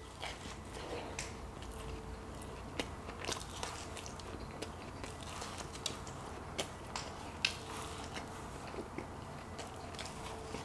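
Close-miked chewing of a Krispy Kreme glazed donut: soft mouth sounds with many short, scattered clicks.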